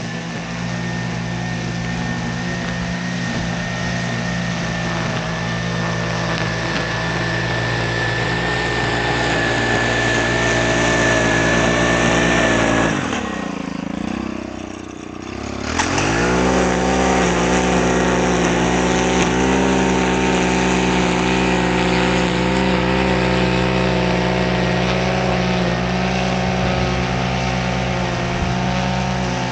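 Small gasoline engine of lawn equipment running steadily at high speed, with a high thin whine over it for the first half. About thirteen seconds in, the engine's pitch and level sag for a couple of seconds, then it picks sharply back up and runs on steadily.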